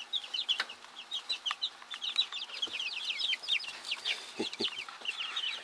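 A group of young chickens peeping: many short, high chirps, several a second, overlapping one another.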